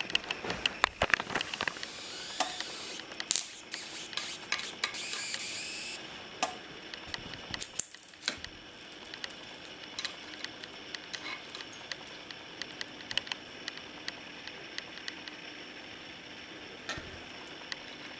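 High-voltage arcing from a CRT monitor's flyback (line output) transformer: crackling snaps over a hiss, which stops abruptly about six seconds in. After that only a faint hiss and occasional ticks remain, as the set cuts out, which the owner puts down to overdriving the flyback.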